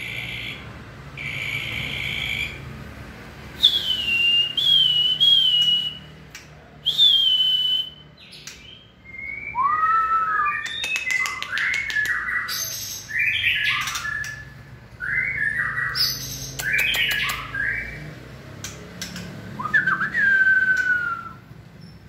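White-rumped shama singing in breeding condition: loud, clear whistled notes, several sliding down in pitch, then from about ten seconds in a run of quick, varied phrases mixed with dry clicking notes.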